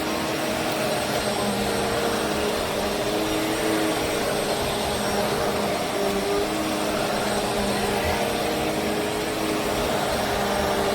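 Bissell CleanView Swivel Pet Reach full-size upright vacuum cleaner running steadily: a motor hum with a few held tones under a rush of air.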